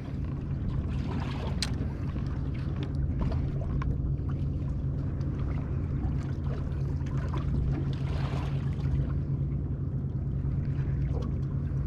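Boat motor running at a steady idle, a constant low hum, with one sharp click a little under two seconds in.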